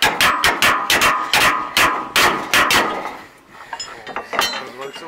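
Hammer blows on the steel drive sprocket and shaft of a Claas Rollant 46 baler roller: about eight even strikes in under three seconds, each with a short metallic ring, knocking the sprocket loose to get at a failed roller bearing. After that come a few light metal clinks.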